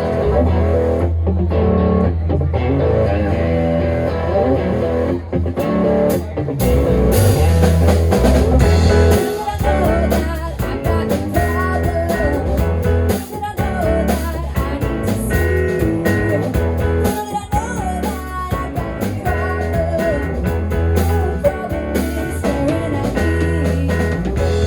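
Live rock band playing a blues-tinged passage: guitar lines over deep bass notes, with a fuller, brighter sound setting in about six seconds in.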